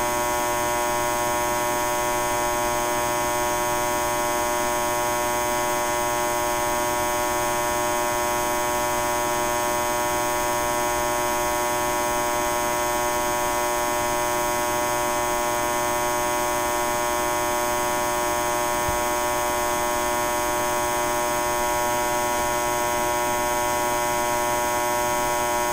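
High-voltage power line buzzing: a steady electrical hum with a bright, buzzy edge made of many even overtones, holding the same pitch and loudness throughout.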